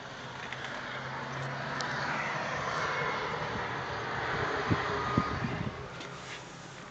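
A broad rushing noise swells up over a few seconds and fades again, with a few faint knocks about two-thirds of the way through.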